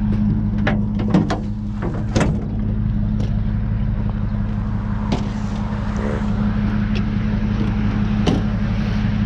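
A vehicle engine running steadily with a low hum, broken by a few sharp clicks and knocks, several in the first couple of seconds and single ones about five and eight seconds in.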